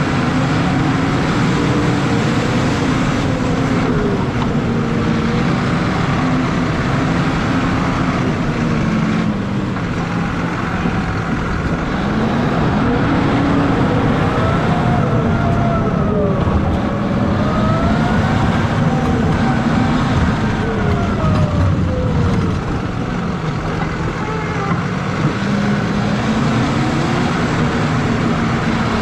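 John Deere 6155R tractor's six-cylinder diesel engine running under load while it pushes a front snow plow. Its pitch rises and falls slowly several times as the revs change, over a steady rumble.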